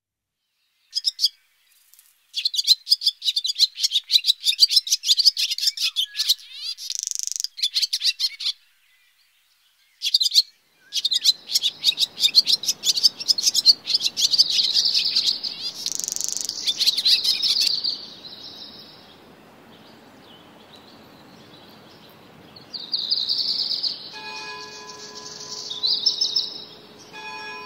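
Small songbirds singing in quick runs of chirps and trills, breaking off for about two seconds partway through. Near the end a bronze bell's steady ringing tones sound faintly beneath the birdsong.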